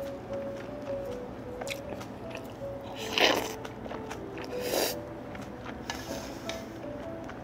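Soft background music with a simple stepping melody, over small clicks of a spoon on dishes. About three seconds in and again near five seconds come two short, loud mouth noises of eating a spoonful of kimchi stew.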